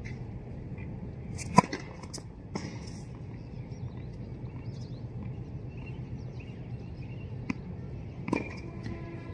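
Tennis ball impacts on an outdoor hard court: one sharp crack of a racket hitting a ball about a second and a half in, then a few fainter knocks. Near the end a ball bounces with a short ringing ping. Under it all runs a steady low background hum.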